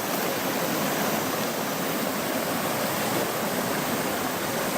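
Mountain stream water rushing steadily, an even hiss with no breaks.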